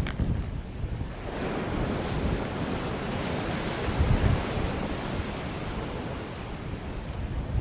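Ocean surf rushing in against the shoreline: a broad wash swells about a second in and fades over several seconds, while wind buffets the microphone with low rumbles.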